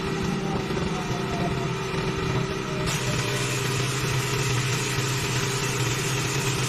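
Pressure washer engine running steadily, with the hiss of the water jet; the spray gets suddenly louder about three seconds in.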